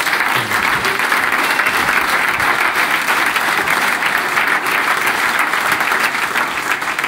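Audience applauding: a dense, steady patter of many hands clapping that stops near the end.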